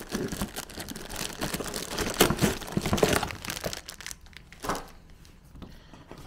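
Protective packaging sheet being peeled off and handled, crinkling and rustling densely for about four seconds. It then goes quieter, with one short rustle nearly five seconds in.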